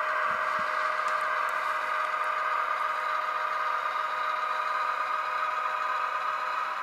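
Sound decoder in an Atlas Trainman GP38-2 model locomotive playing a diesel engine sound through its small speaker: a steady drone with no deep bass.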